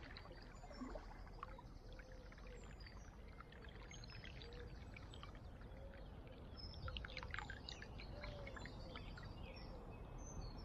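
Faint water sounds of a kayak paddle: drips and small splashes trickling off the blades as it glides, with birds chirping faintly.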